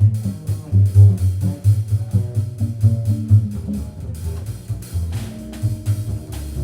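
Live jazz instrumental passage: plucked double bass notes stand out, with guitar and drum-kit cymbals.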